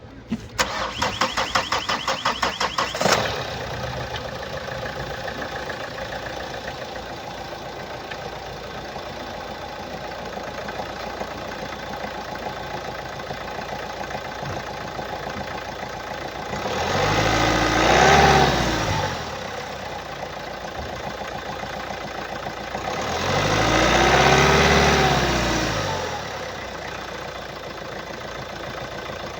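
2015 Hyundai i30's 1.6-litre D4FB four-cylinder diesel engine is cranked by the starter for about two and a half seconds, catches and settles into idle, then is revved up and back down twice. The seller attributes the engine's unusual noise to a clogged diesel particulate filter (DPF).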